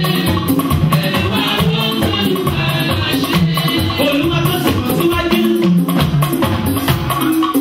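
Music with a steady beat of drums and shakers under a melodic line.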